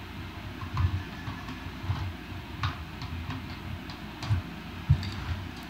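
Hard plastic toy parts clicking and tapping as the guns are snapped into place on top of a Transformers toy trailer. The clicks are irregular, a few per second at most, with dull low bumps from handling the toy; the loudest bump comes near the end.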